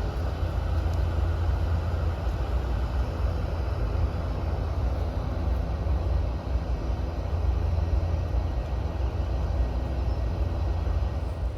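Steady low engine rumble with a faint hum, unchanging throughout.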